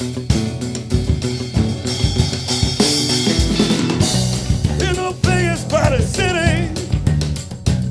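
Rock band playing live: electric guitar and drum kit, with a cymbal wash around the middle. A male singer comes in about five seconds in with a held, wavering vocal.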